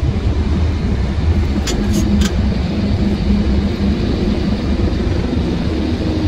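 Truck engine and road noise running steadily, heard from inside the cab while driving, with three quick clicks about two seconds in.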